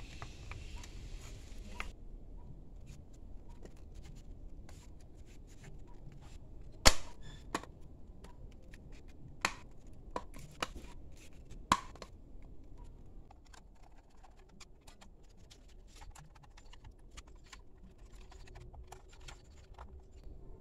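Plastic shell of a knock-off JBL Bluetooth speaker being handled and pressed together by hand: scattered clicks and scrapes, with a few sharper snaps around the middle.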